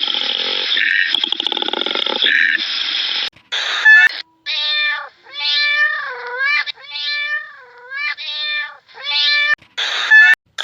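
A cat meowing about half a dozen times in a row, each meow dipping and rising in pitch. Before it, a dense, pulsing noisy sound cuts off abruptly.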